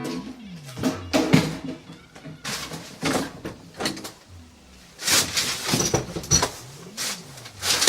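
A door being handled: a run of uneven knocks, clicks and rattles, like a doorknob being turned and the door pushed and pulled.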